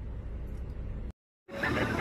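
Faint low background noise that breaks off into a moment of dead silence at an edit cut, then picks up again with men's voices and outdoor noise.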